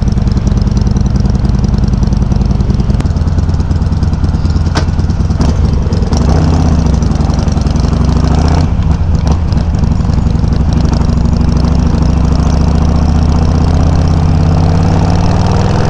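Harley-Davidson Sportster 883's air-cooled V-twin running loud through Customer slip-on exhaust tips with the baffles set low, picked up by a mic on the bike while riding. The engine note shifts with the throttle and climbs near the end.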